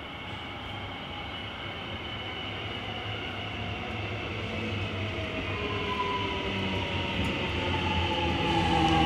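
Alstom X'Trapolis 100 electric suburban train approaching, growing steadily louder, with a motor whine that falls in pitch from about halfway through.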